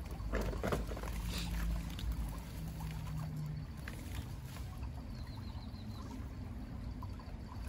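Shallow stream running over stones, with small rustles and clicks as a monofilament gill net is handled to free tilapia caught in it.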